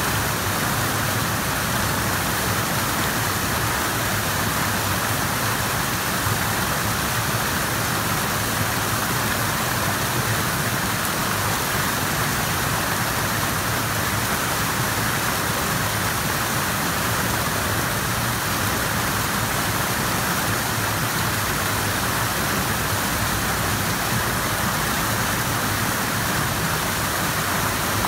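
Fast-flowing river water rushing in a steady, even hiss.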